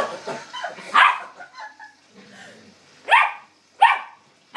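A puppy's short, sharp play barks, about five of them, with a pause of roughly two seconds in the middle.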